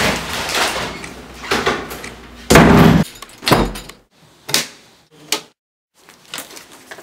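A door slams loudly about two and a half seconds in. After it come a few short clicks and knocks of a round doorknob being turned.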